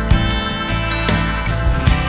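Background music led by guitar, with a steady bass line.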